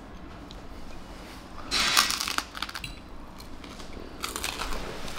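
Crunching as a piece of crusty sourdough bread is bitten and chewed, loudest in two bursts, one about two seconds in and one near the end.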